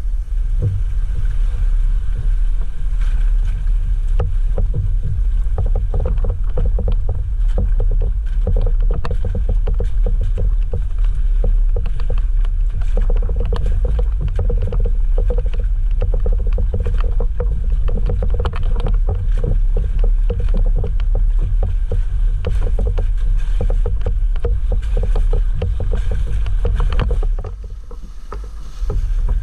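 Jeep Wrangler JL Rubicon's engine running low and steady as it crawls an off-road trail, with frequent short knocks and clatters throughout. The sound drops briefly near the end.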